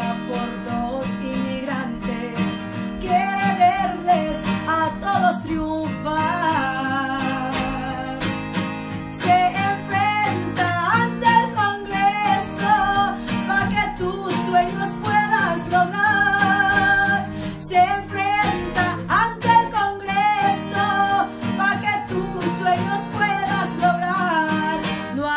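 Corrido song: a voice sings a melody in Spanish over strummed acoustic guitar with a steady bass line.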